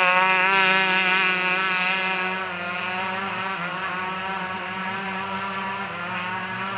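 Racing quad bike engines held at steady high revs, a single buzzing note that slowly fades as the quads pull away.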